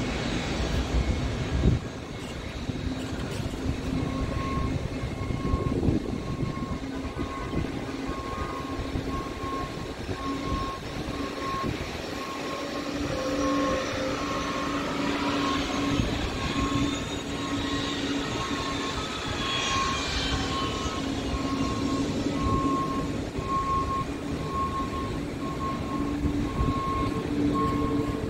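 Jet aircraft engines running with a steady rumble and a high turbine whine. The whine rises and falls in pitch about halfway through, as an aircraft moves past.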